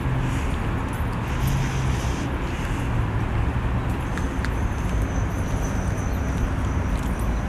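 Steady outdoor city ambience: a continuous low traffic rumble with a wash of noise, a few faint clicks, and a thin high whine in the second half.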